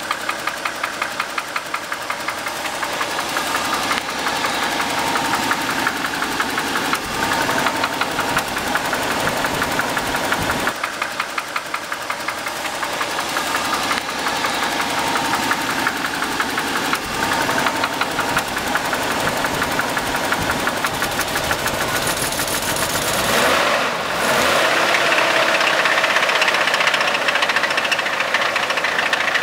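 Nissan Skyline R31's RB30 straight-six engine running with a fast, regular ticking knock in time with the engine, a noise the owner cannot place as engine knock, a valvetrain tick or a crack. About 24 seconds in, the sound changes, the low end dropping away.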